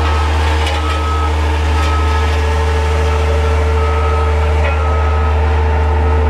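Loud, steady low mechanical hum, with a short high beep repeating about once a second.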